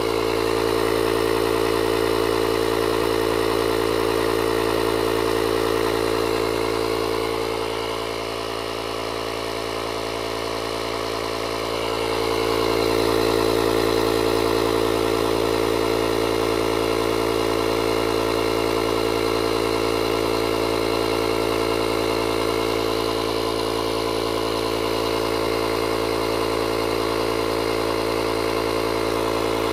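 Built-in air compressor of a JFEGWO 6000A 12-volt jump starter running steadily under load while it inflates a vehicle tire, a constant mechanical drone.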